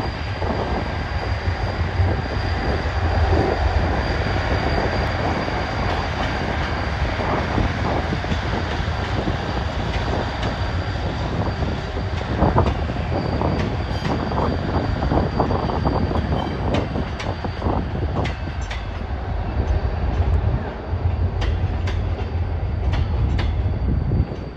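Korail diesel locomotive hauling a Mugunghwa passenger train past, its engine giving a deep steady rumble over the rolling noise of the train. From about halfway through, the coaches' wheels click and clatter over the rail joints as they pass.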